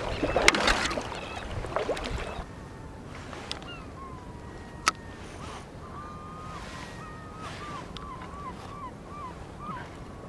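Kayak paddle strokes splashing in calm sea water, dying away after about two seconds. A single sharp click comes about halfway through, and a run of faint short chirping calls follows near the end.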